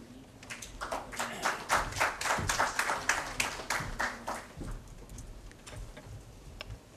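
Audience applause: scattered clapping that builds up in the first second and dies away after about four and a half seconds.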